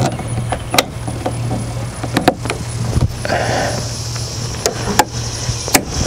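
Scattered sharp clicks and taps from a YakAttack RotoGrip paddle holder's plastic clamp and bungee cord as the bungee is pulled and hooked over a kayak paddle shaft, with a short scrape about halfway through, over a steady low hum.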